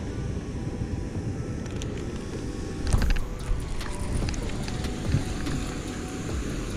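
Wind buffeting the microphone in a steady low rumble, with a short burst of clicks and knocks from rod and reel handling about three seconds in and a single knock a couple of seconds later.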